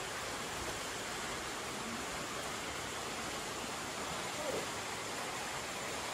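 Steady rain hiss, an even wash of noise without pauses.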